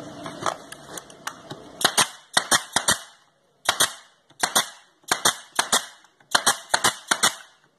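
Brad nailer driving brads into pine boards, fired in quick runs of two to five sharp shots, each with a short hiss, many shots in all.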